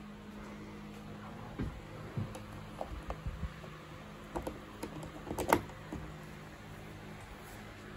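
Recessed steel butterfly latch on a flight case being worked by hand: a string of small, irregular metallic clicks and clacks, with the sharpest clack about five and a half seconds in.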